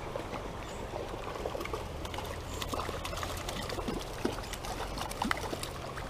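Shallow stream water trickling and splashing over a riffle, with many small splashes and ticks.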